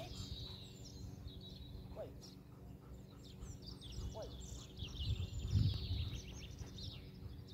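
Small birds chirping and trilling with a steady low rumble underneath; the rumble swells briefly about five seconds in.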